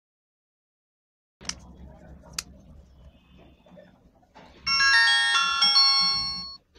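Lava Gem feature phone playing its power-on startup tune: a short chime of bright, steady notes lasting about two seconds, starting near the end. Before it, faint handling noise and two sharp clicks as the phone is handled.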